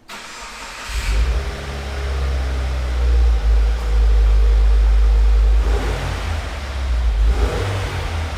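2015 Subaru WRX's turbocharged flat-four heard through a new Invidia N1 cat-back exhaust, revving with a deep, loud rumble. The sound comes in about a second in, holds at its loudest for a couple of seconds, and then rises and falls.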